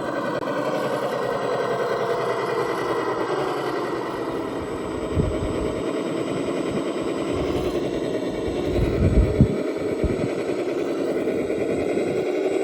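Electric motor and gears of an RC rock crawler whining as it drives, the pitch slowly rising and falling with the throttle, with a few low thumps about five seconds in and again around nine to ten seconds in.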